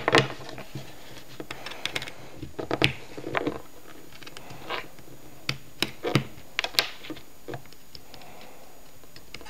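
Irregular light clicks and knocks as cable plugs are pushed into the ports of a small bare single-board computer while it is handled.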